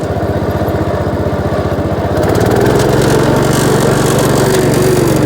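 Kohler engine of an old Gravely tractor running, speeding up and getting louder about two and a half seconds in as the throttle is opened.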